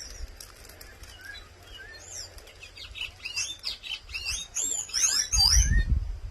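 A sabiá thrush singing a fast run of quick, varied notes that starts about two seconds in and grows busier toward the end. A low rumble joins in near the end.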